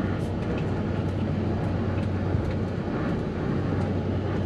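Custom off-road tour truck's engine and drivetrain running with a steady low drone, heard from aboard, with small scattered rattles and knocks from the ride.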